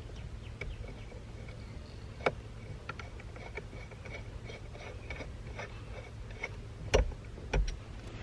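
Light ticks and clicks of hand tools and hardware being handled while fitting a steering wheel hub. Three sharper knocks stand out, one about two seconds in and two near the end, over a steady low hum.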